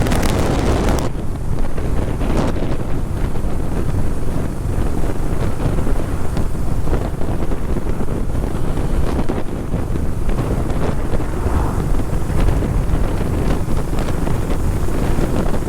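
Heavy wind noise buffeting the microphone of a rider moving at speed: a loud, steady, deep rumble without any clear tone.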